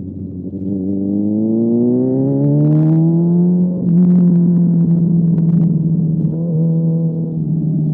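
Motorcycle engine accelerating: its pitch climbs steadily for about three seconds, drops abruptly at an upshift just before four seconds in, then holds fairly steady at a lower pitch.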